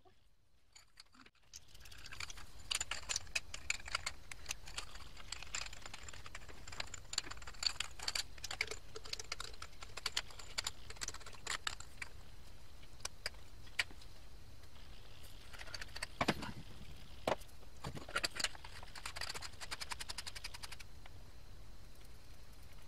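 Small metal parts and an aluminium pump barrel being handled and fitted together by hand: many scattered light clicks, clinks and rattles, with a few louder knocks in the second half.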